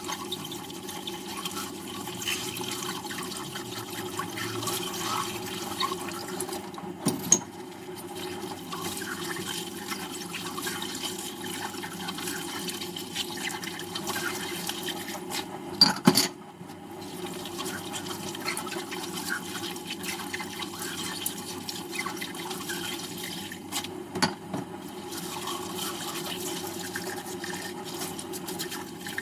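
Water running steadily from a kitchen tap into a sink, with a few sharp knocks, the loudest about sixteen seconds in.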